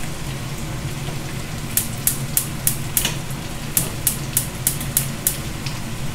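Pepper strips and onions frying in a pan, a steady sizzle. From about two seconds in to about five, a run of about ten sharp clicks comes at roughly three a second.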